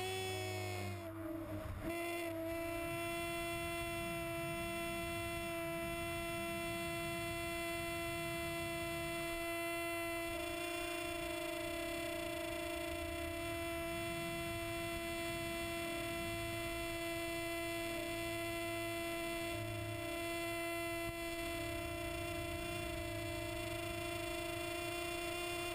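Cessna 182's engine and propeller droning steadily as a single pitched hum, over a low rumble of airflow.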